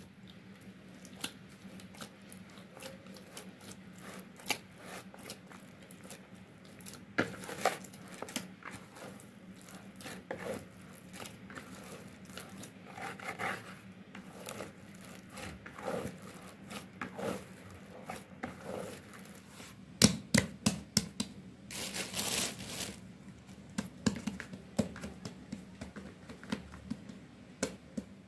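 Hands kneading and folding soft bread dough in a plastic basin: irregular squishing, slapping and sticky tearing sounds as the dough is pressed, pulled and turned. A louder run of slaps and a scraping rustle comes a little over twenty seconds in.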